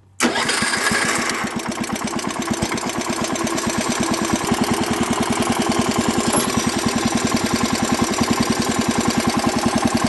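Wheel Horse Commander 800 garden tractor's single-cylinder engine starting up on the key. It catches almost at once and then runs steadily with an even, rapid firing beat.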